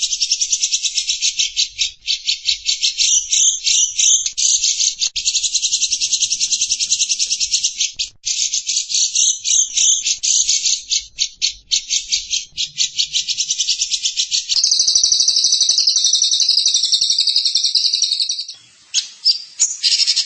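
Small songbird singing loud, high-pitched song: a long run of very fast repeated notes, changing about fourteen seconds in to a continuous buzzy trill for about four seconds, then breaking into short separate notes near the end.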